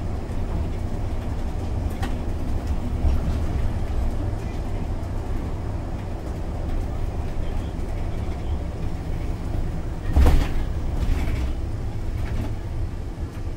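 Cabin sound of a MAN Lion's City articulated bus with a biogas engine under way: a steady low rumble of engine and tyres on the road. About ten seconds in there is a single louder thump, with a fainter one about a second later.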